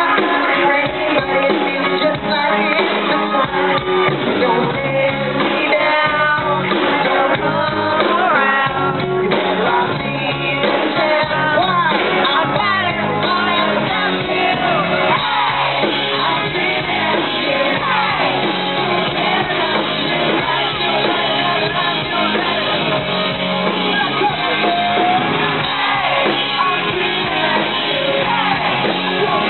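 Live rock band playing through the stage PA: a lead singer, electric guitar and drums. Shouting and yelling from the audience close to the microphone.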